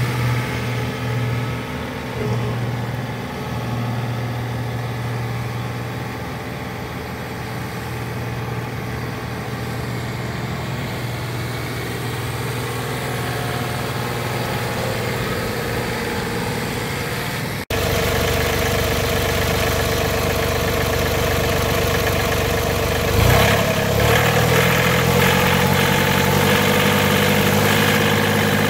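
John Deere 3039R compact tractor's three-cylinder diesel running steadily while the tractor drives about. After a sudden cut the engine is heard close up and louder with the hood open, and near the end its speed is raised in steps.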